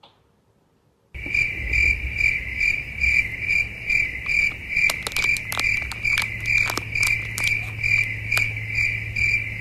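A high, cricket-like chirp repeating about twice a second over a low hum. Midway it is joined by a burst of crinkling from a plastic snack packet being handled.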